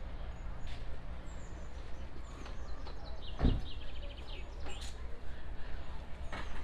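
Outdoor ambience at a bike rack: a steady low rumble with a few short high bird chirps. About halfway through comes a sudden thump inside a quick run of even ticks.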